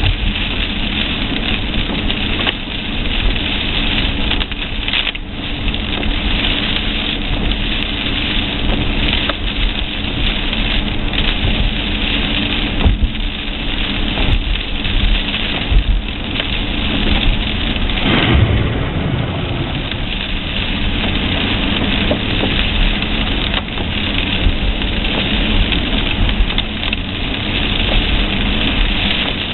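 Rain and road noise heard inside a car in a storm, with the engine running steadily underneath. A few brief knocks stand out from the steady rush.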